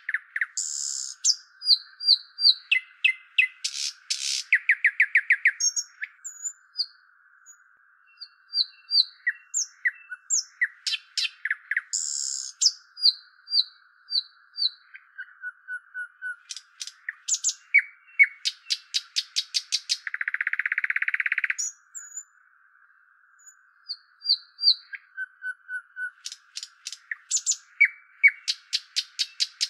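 A songbird singing in phrases of chirps, repeated whistled notes and fast trills, with short pauses between phrases. A faint steady hiss lies under it, with a louder patch of hiss lasting about a second and a half partway through.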